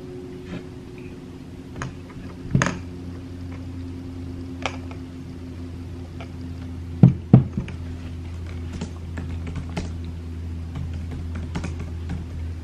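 Scattered light clicks and taps over a steady low hum, with a louder click about two and a half seconds in and two louder knocks close together about seven seconds in.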